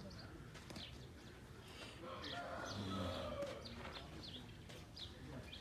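Small birds chirping over and over in quick, short, falling calls. A brief low murmur about halfway through is the loudest moment.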